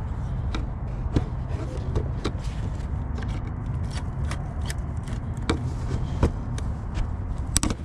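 Flathead screwdriver clicking and scraping against the air intake duct's hose clamp and nearby plastic engine-bay parts: a scattered run of sharp clicks, with a loud double click near the end, over a steady low rumble.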